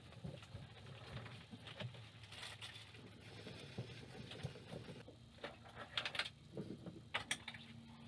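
Faint scattered clicks, taps and rustles of a clothesline being strung up and fastened by hand, a little busier in the second half. A faint steady low hum comes in about five and a half seconds in.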